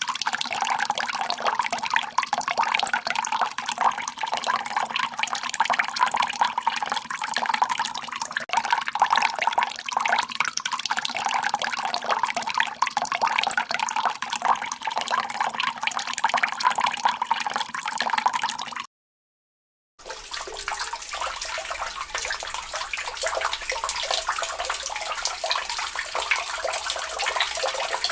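Water running steadily from a tap in a continuous splashing stream. About two-thirds of the way through it cuts to silence for about a second, then running water resumes with a deeper sound.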